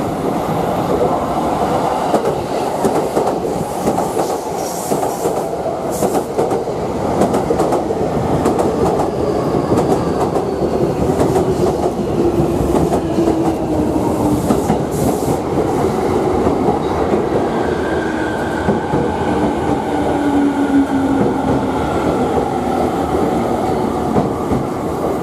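Electric commuter train running into a station platform at speed: a steady rumble and clatter of wheels over the rails, with a faint motor whine that falls slowly in pitch as the train brakes.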